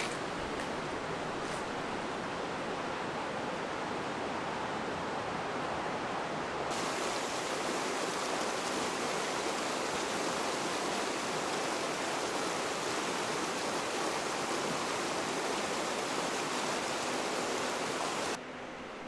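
Steady rushing outdoor noise, like running water. It turns abruptly brighter and hissier about a third of the way in, and drops suddenly in level near the end.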